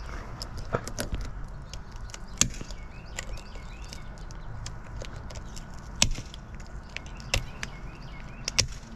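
Garden shears snipping through the tough, armoured scales of a longnose gar: a series of sharp snips at uneven intervals, the loudest about two and a half and six seconds in.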